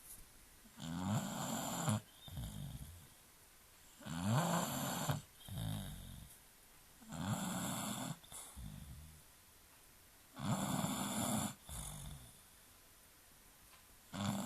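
British Bulldog snoring in its sleep: a loud snore about every three seconds, each followed by a shorter, quieter breath out.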